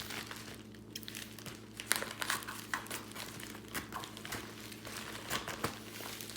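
Mailing package being opened by hand: packaging crinkling and tearing in irregular rustles and crackles.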